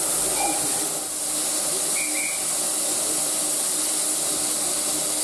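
Small tank steam locomotive standing with steam venting in a steady, unbroken hiss.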